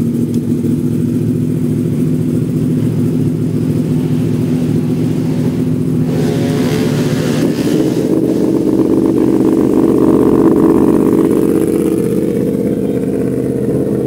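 Superbike engines idling while they warm up. About six seconds in, a Yamaha R1's crossplane inline-four is started or blipped at the right-hand switch and throttle and joins the idle, after which the engine sound is a little fuller and louder.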